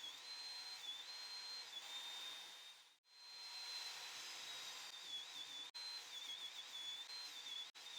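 Table saw running and ripping boards to width: a steady hiss under a thin high blade whine that dips and wavers in pitch as the wood is fed, breaking off abruptly a few times.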